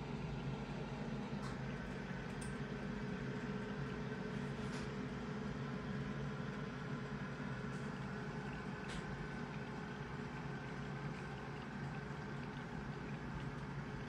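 Aquarium filter running: a steady motor hum with water trickling, and a few faint ticks.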